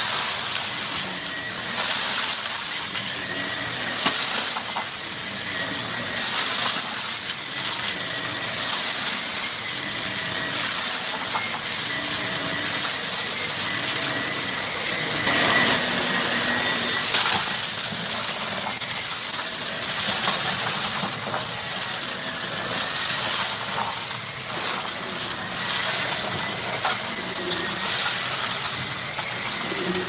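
Shark Rotator upright vacuum running on carpet, its motor whining steadily under a rush of air, sucking up scattered debris with a crackling crunch. The sound swells and eases about every two seconds as the vacuum is pushed forward and pulled back.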